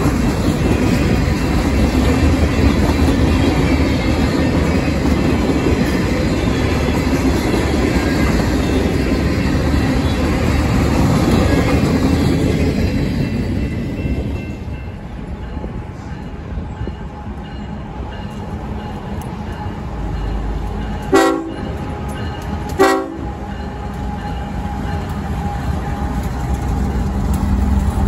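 Railroad cars of a Norfolk Southern maintenance-of-way train rolling past, their rumble fading away about halfway through as the train clears. Later come two short train horn blasts about a second and a half apart.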